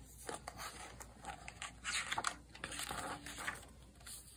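Pages of a hardcover picture book being turned, a run of irregular paper rustling and crinkling that lasts about three and a half seconds.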